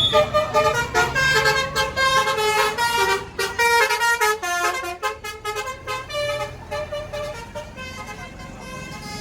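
Basuri multi-tone bus horn playing a quick tune of short stepped notes, loud at first and fading away after about three seconds.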